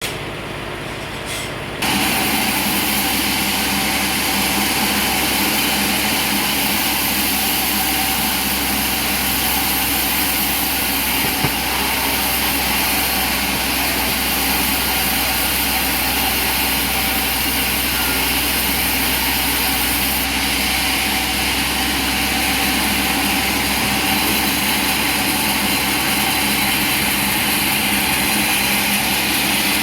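Steady drone of heavy machinery running, a constant engine-like hum with a wide hiss over it. It gets louder about two seconds in and then holds steady.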